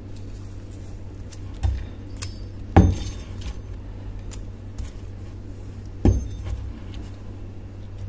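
Rusty iron hatchet head knocking on a wooden workbench as it is tipped over and handled, three knocks with the second the loudest. Light clinks and ticks of copper wire being twisted around the head, over a steady low hum.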